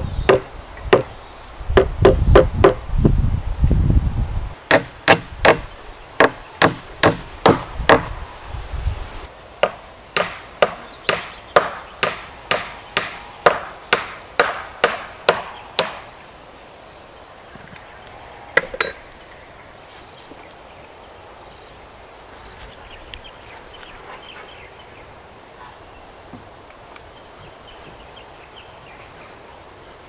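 Hammer driving nails into the timber of a wooden gate frame: sharp wood-and-metal strikes about two a second, stopping about halfway through. A single knock follows a few seconds later, then only faint background sound.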